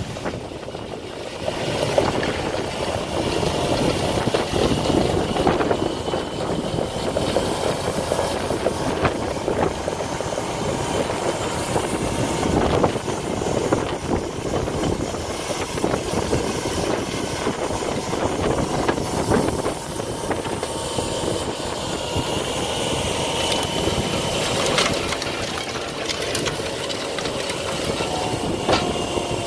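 Diesel engine of a Volvo L35GT wheel loader running steadily under load while its front-mounted Tokvam snowblower churns and throws snow. A few sharp knocks stand out over the even din.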